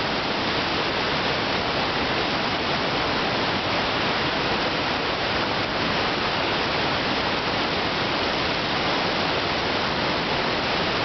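Steady rushing of the Niagara River's rapids just above Niagara Falls: a constant, even roar of fast white water with no break.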